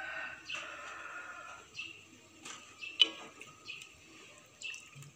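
Metal spatula stirring coconut-milk curry in a wok: a scraping swish through the first second and a half, then a single sharp clack about three seconds in. Birds chirp in the background.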